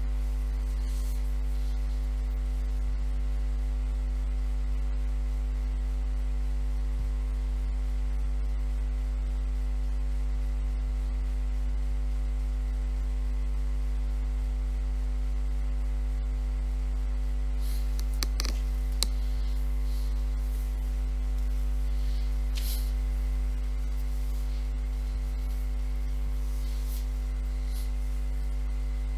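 Steady electrical mains hum with a stack of overtones, unchanging throughout; a few short clicks sound about two-thirds of the way through.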